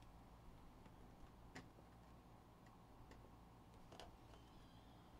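Near silence, with a few faint taps as a shrink-wrapped trading card box is taken from a stack and set down on the table.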